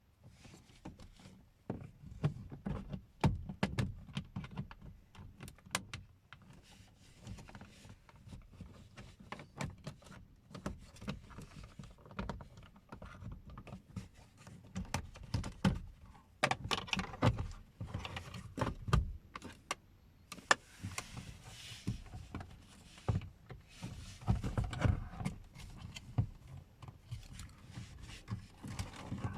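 Irregular plastic clicks, knocks and rattles as a car's power-window master switch assembly is handled and worked loose from the driver's door.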